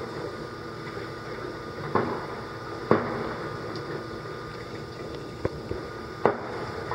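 Distant fireworks going off: five sharp bangs at irregular intervals, two of them in quick succession, each with a short echoing tail, over a steady low background noise.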